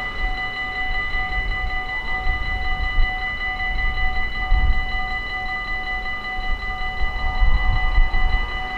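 Dutch level-crossing warning bell ringing steadily with a rapid repeating strike while the barriers are down, warning of an approaching train. Under it a low rumble swells about four and a half seconds in and again near the end.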